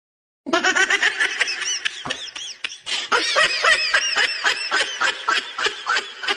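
High-pitched rapid laughter, a run of short rising-and-falling squeals coming several a second, starting suddenly about half a second in.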